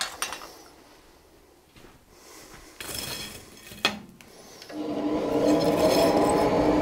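A few light metal clinks as the tools are handled. About two-thirds of the way in, a coal forge's blower comes on and runs with a steady hum and rush of air, fanning the fire up.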